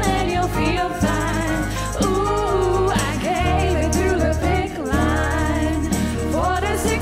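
A song performed on stage: voices singing over instrumental accompaniment with a sustained bass line.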